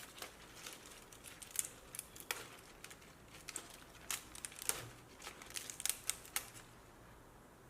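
Leaves being stripped from crisp bok choy stalks: an irregular run of sharp snaps and crackles with leafy rustling, which stops near the end.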